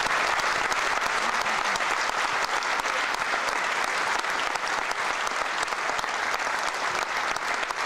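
Audience applauding at the close of a talk: dense, steady clapping from a large room.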